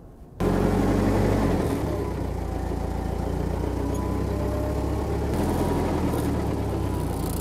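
Forklift engine running steadily while it carries a pizza oven on its forks. The sound starts suddenly about half a second in, and a faint whine rises and falls over the engine.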